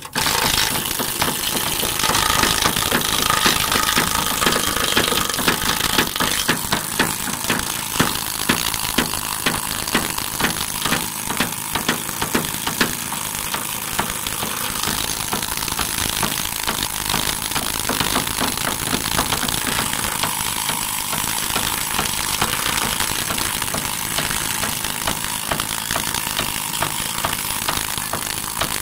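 Needle scaler hammering its bundle of steel needles against a painted, rusting steel plate, a loud, continuous, dense rattle. The tool is chipping off old paint and rust as surface preparation.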